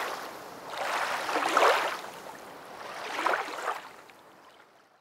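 Lake water lapping at the shore in slow, noisy swells, the strongest about one and a half seconds in and another near three seconds, fading out near the end.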